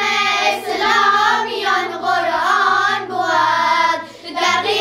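A group of young girls singing together in unison, in held phrases that rise and fall, with a brief break between phrases a little before the end.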